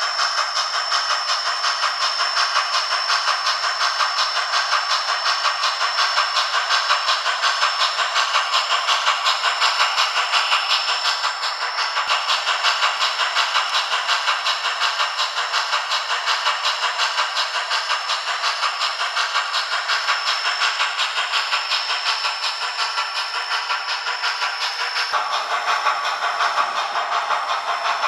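Soundtraxx Tsunami2 sound decoder in an HO scale N&W Z1a 2-6-6-2 model playing steam locomotive sounds through the model's small speaker: rhythmic exhaust chuffs, about three a second, over a steady hiss, with no bass.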